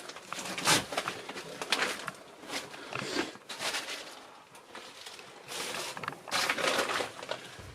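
Irregular rustling, creaks and knocks of someone moving through and handling clutter, with a longer scraping rustle near the end.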